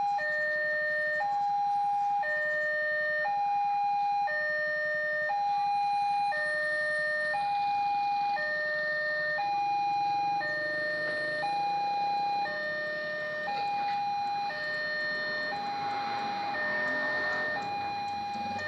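Railway level-crossing warning alarm sounding: an electronic two-tone signal alternating between a higher and a lower note about once a second, the warning that a train is approaching the crossing.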